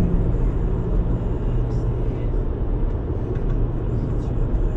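Steady road and engine noise inside the cabin of a Volkswagen Golf GTI cruising at highway speed, mostly a low rumble. A low hum fades out in the first second or so.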